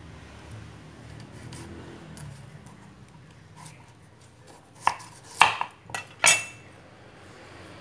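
Kitchen knife cutting a carrot on a wooden cutting board: quiet handling, then about three seconds before the end four sharp knocks of the blade on the board within a second and a half, the last one ringing briefly.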